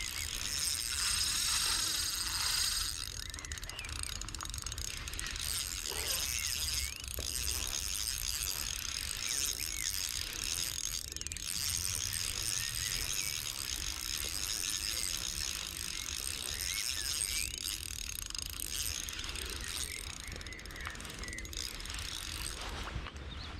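Ultralight spinning reel being cranked steadily, its gears whirring as the line and lure are wound in.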